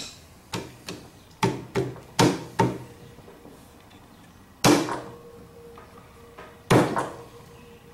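Sharp metallic knocks and clunks as a clutch pressure plate is worked by hand onto the flywheel's dowel pins: six quick ones, then two louder ones a couple of seconds apart.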